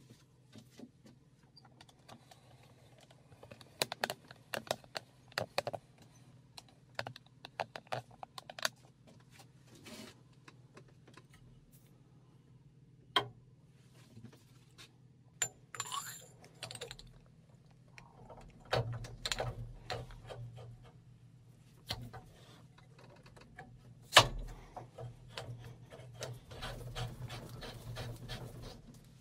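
Steel press parts being handled and fitted into a cast-iron housing: irregular metal clicks and clinks, in clusters, with one loud knock about two-thirds of the way through.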